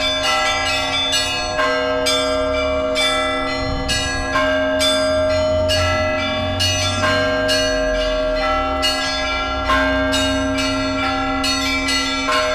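Russian Orthodox church bells ringing after the liturgy: quick strikes of the smaller bells, about two a second, over the steady hum of the larger bells.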